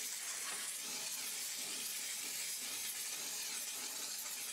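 Desiderio steam cleaner's steam jet hissing steadily from a brush nozzle on grill grates, breaking down baked-on grease and food.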